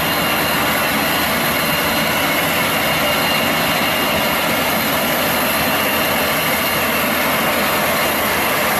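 Volvo street sweeper truck with a Scarab sweeper body working, its engine, rotating gutter brush and suction running together as a steady, even rushing noise with a faint high whine.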